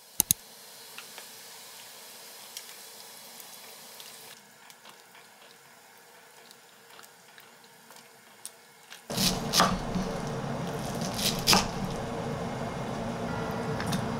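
Sliced pork simmering in a saucepan of boiling water, stirred with wooden chopsticks, with two sharp clicks at the start and faint ticks against the pot. About nine seconds in a much louder rush of water takes over, with a few metal knocks, as the pork is drained through a stainless steel colander.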